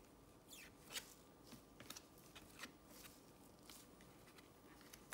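Faint flicks and slides of glossy trading cards being moved one behind another in a hand-held stack, a handful of soft clicks spread over a few seconds against near silence.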